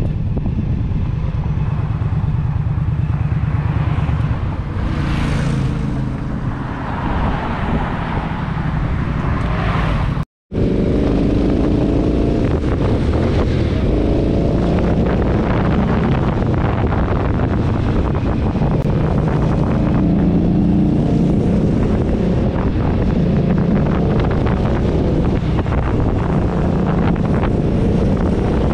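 Indian Scout Sixty's V-twin engine running on the road with wind rushing over the microphone; the engine note climbs and falls with throttle and gear changes. The sound cuts out for a moment about ten seconds in.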